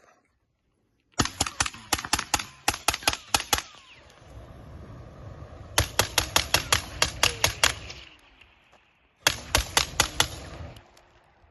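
Pulsefire UBF flamethrower fired in three bursts, each a rapid rattle of sharp snaps, about six a second. A low rushing sound runs through the middle burst.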